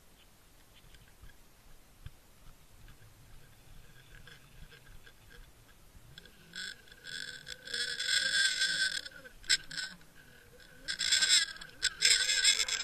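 Underwater camera rig on a fishing line jostled by a hooked walleye: faint ticking at first, then from about six and a half seconds in, loud bursts of rough scraping and rattling as the fish pulls and shakes the line, the loudest near the end.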